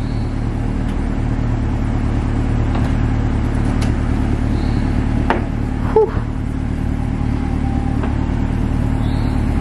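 A car's engine idling steadily while its power-folding convertible roof is raised, with a few faint clicks from the roof mechanism.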